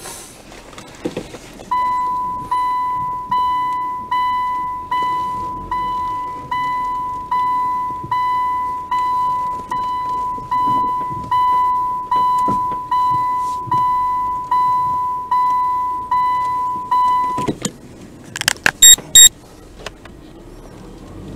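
A car's in-cabin warning chime beeping about twenty times, one mid-pitched tone a little more than once a second, each beep fading, before it stops. A few loud sharp clicks follow near the end.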